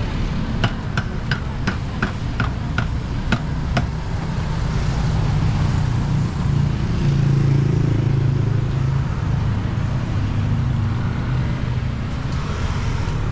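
Street traffic with the engine of a vehicle passing close, swelling loudest a little past the middle. In the first four seconds there are about nine sharp, ringing clinks, two or three a second.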